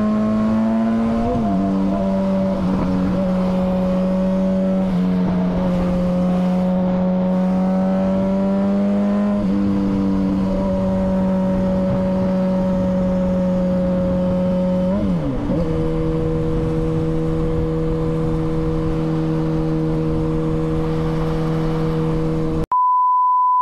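MV Agusta F4's inline-four engine running at a steady freeway cruise, its note dropping in pitch at a couple of gear changes. Near the end the engine sound cuts off abruptly to a steady high-pitched beep.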